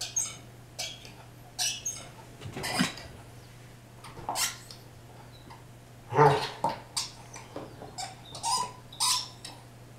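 A dog chewing a rubber squeaky ball, making about eleven short squeaks at irregular intervals, the loudest about six seconds in.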